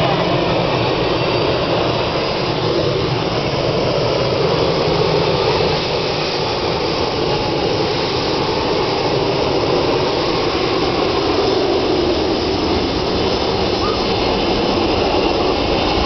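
Two rear-mounted jet engines of an MD-80-series airliner running steadily and loud at close range while the plane taxis and turns its tail toward the listener.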